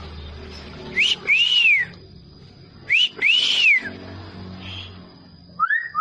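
Common hill myna whistling: three calls about two seconds apart, each a short upward note followed by a longer whistle that rises and falls; the last call is lower in pitch.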